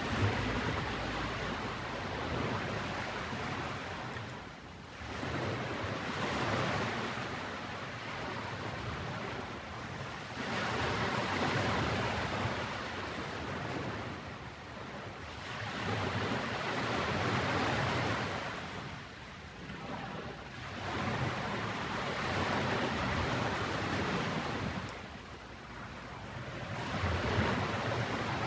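Ocean waves breaking and washing up on a sandy beach. Each surge swells and then fades, about every five seconds.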